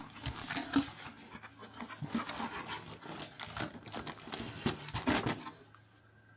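A cardboard kit box being opened by hand and its plastic-wrapped parts and manual handled: an irregular run of rustles, scrapes and crinkles that stops near the end.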